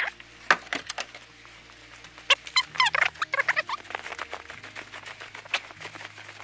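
Footsteps crunching and squeaking on packed snow: a run of uneven crunches, with a cluster of high squeaks midway.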